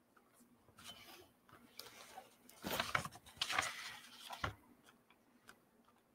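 Paper rustling and sliding as an art journal and its loose pages are shifted and handled on a tabletop, loudest between about three and four and a half seconds in, ending with a short tap.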